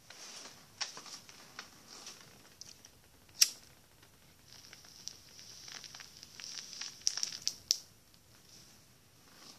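A lighter lighting a smoke held at the lips: sharp clicks, the loudest a little over three seconds in and a quick cluster near the end, over a soft hiss and crackle of the burning as it is drawn on.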